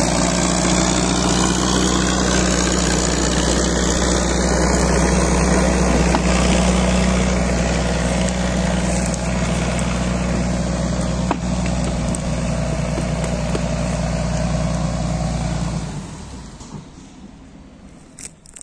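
Caterpillar 518 log skidder's diesel engine running steadily at a low, even pitch. Its sound drops away sharply about two seconds before the end.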